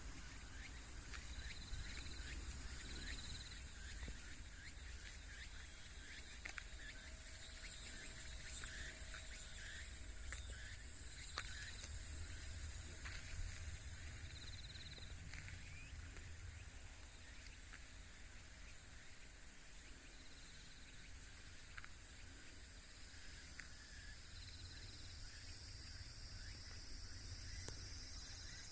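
Rural outdoor ambience: insects chirping steadily, with pairs of short high chirps every few seconds, over a steady low rumble.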